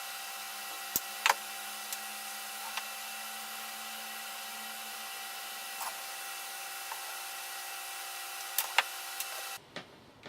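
Small tools and components tapped and handled on a workbench during soldering work: a few sharp clicks and taps over a steady hiss with faint whine tones. The hiss cuts off abruptly near the end.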